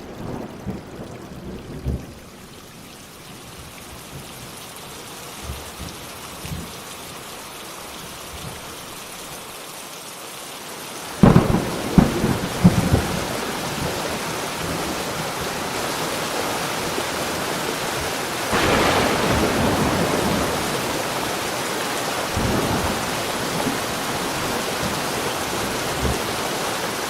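A thunderstorm: rain falling steadily, with loud rumbles of thunder about eleven seconds in, after which the rain is heavier and swells again later.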